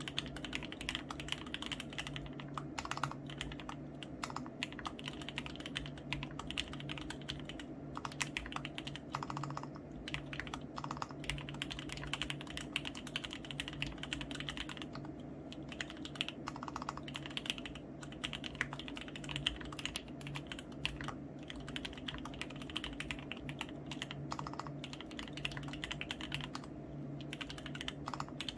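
Continuous fast typing on a mechanical keyboard with lubed Gateron Black Ink linear switches in an acrylic plate, keycaps clacking, with a few short pauses.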